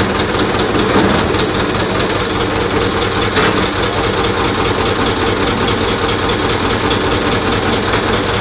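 Heavy engine of a crane running steadily while it slowly hoists a submerged car on a cable.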